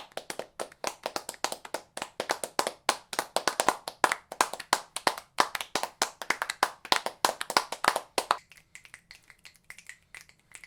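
A small group of people clapping, many quick uneven claps that thin out and fade to a few scattered claps about eight seconds in.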